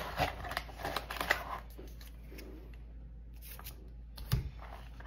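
Rustling and light clicks of hands handling items in a padded zippered carry case. Busiest in the first second and a half, then quieter, with a sharper click about four seconds in.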